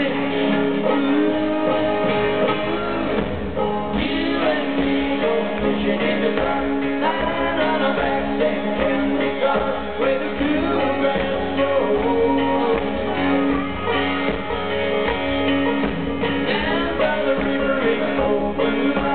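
Live country-rock band music: a man sings lead over electric guitar, with drums and bass; the low end fills in about three seconds in.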